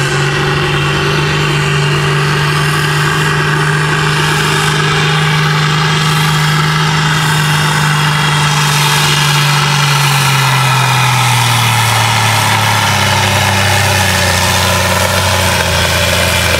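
Modified John Deere tractor's diesel engine running flat out, pulling a weight-transfer sled in a steady loud drone. About eleven seconds in, its pitch drops as the load drags the revs down.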